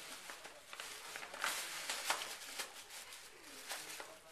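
Gift bag and tissue paper rustling and crinkling in uneven bursts as a Scottish Terrier carries and shakes the bag in her mouth, busiest in the middle.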